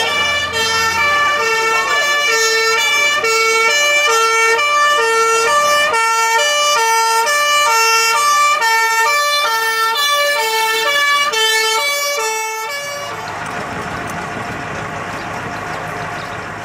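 Fire engine's two-tone siren, alternating between a low and a high note about once a second. It cuts off suddenly about thirteen seconds in, leaving a steady rushing noise.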